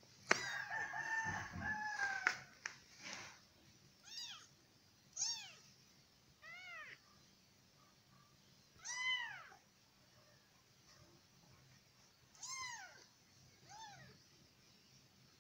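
A weeks-old kitten meowing: a longer, louder cry in the first two seconds, then about seven short meows spread through the rest, with pauses of one to three seconds between them.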